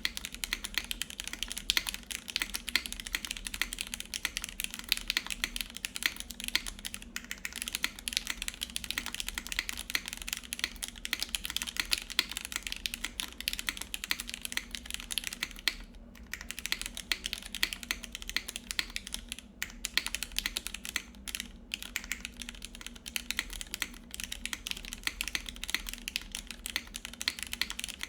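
Steady fast typing on a Sensy Lab Supernova 60% mechanical keyboard with lubed Gateron Yellow milky-top linear switches, a 4 mm ABS plate and GMK Dolch keycaps. The keystrokes come as a dense stream, with a few short pauses past the middle.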